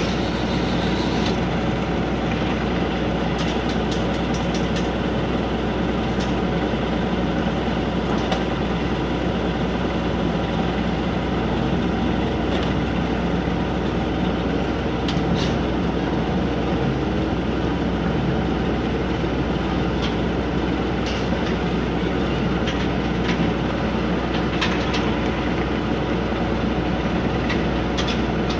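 Eli Ferris wheel's drive motor running steadily as it slowly turns the wheel, with a few sharp metallic clicks and clanks.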